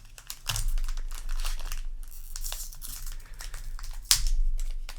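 Booster pack wrapper crinkling and tearing as a trading-card pack is opened by hand. There are bursts of crackling, the loudest about half a second in and again about four seconds in.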